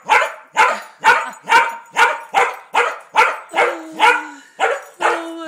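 Dog barking over and over, about two barks a second; in the second half a few barks are drawn out into longer, whining yelps.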